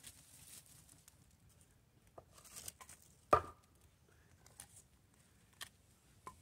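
Small campfire of twigs and birch bark crackling, with a few scattered sharp cracks, the loudest about halfway through.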